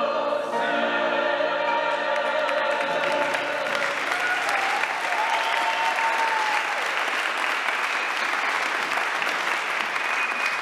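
A group of voices singing the last held notes of a song, ending about three and a half seconds in, followed by an audience applauding.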